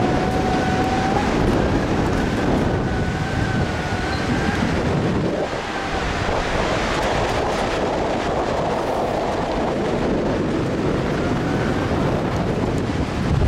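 Wind rushing over a helmet-mounted camera's microphone as a bungee jumper swings upside down on the cord, a steady rumbling noise with a faint whistle coming and going.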